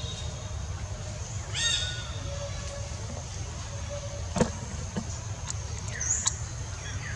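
A single short, harsh animal call about one and a half seconds in, the loudest sound here, over a steady low rumble and a faint steady high whine, with a few sharp clicks and a short squeak later on.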